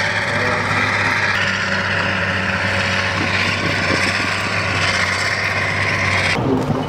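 Tracked amphibious assault vehicles' diesel engines running steadily as they drive up out of the surf onto the sand. The sound changes abruptly near the end, turning rougher with sharp knocks.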